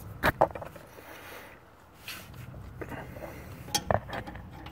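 Sharp metallic clinks of a hand wrench against the fittings of an engine coolant line being tightened: two loud ones about a quarter second in, and a few more near the end.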